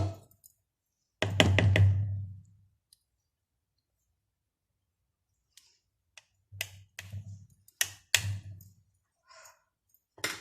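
Sharp knocks and taps of kitchen things against a bowl or worktop: a quick cluster about a second in, then another group of separate knocks a few seconds later.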